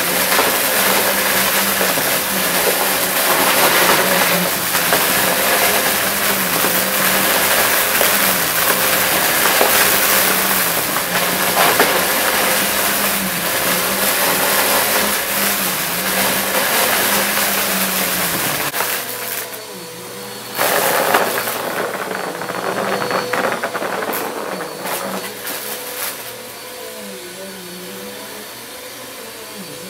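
Upright vacuum cleaner running over a pile of crunchy glitter and confetti debris: a steady motor hum with crackling and rattling as the pieces are sucked up. About two-thirds of the way through it becomes noticeably quieter, with one brief loud burst shortly after.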